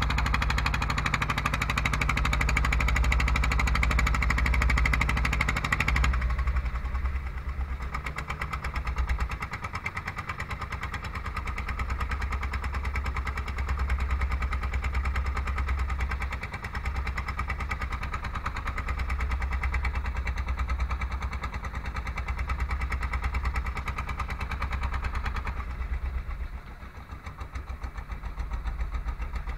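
Fishing boat's engine running steadily as the boat moves under way, a low even hum. A higher hiss over it drops away sharply about six seconds in, and the engine carries on.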